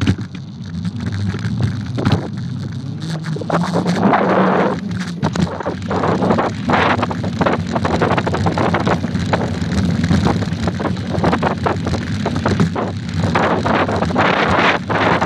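Mountain bike ridden over a rough dirt road, heard from a phone mounted on the bike: a steady rumble with constant rattling knocks from the bumps, and wind buffeting the microphone.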